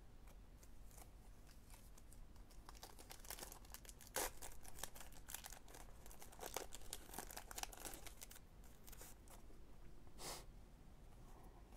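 Trading cards and pack wrapper being handled: faint rustling and crinkling, with sharper crinkles about four seconds in and again about ten seconds in.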